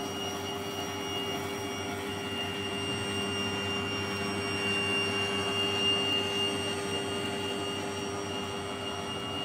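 Karaca stand mixer running at a steady speed, mixing in its stainless steel bowl: an even motor whine with a high, thin tone on top.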